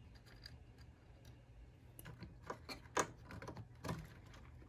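Faint clicks and rattles of a circuit board and its connectors being worked loose inside a stereo receiver chassis, with a run of sharper clicks in the second half, the sharpest about three seconds in.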